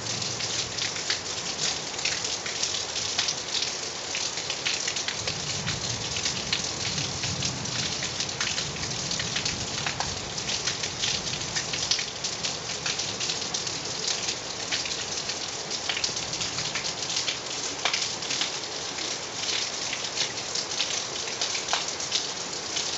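Steady rain falling during a thunderstorm, with many separate drop hits close by.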